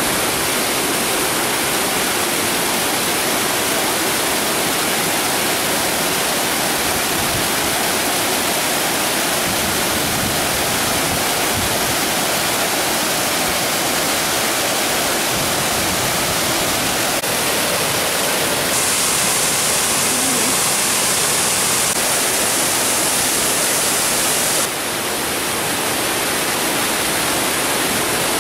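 Steady rush of a fast-flowing, swollen muddy stream, a loud even hiss with no breaks. The hiss turns brighter for a few seconds late on, then eases slightly.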